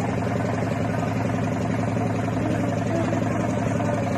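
Motorboat engine running steadily at an even speed, a constant low hum with a fine rapid pulse.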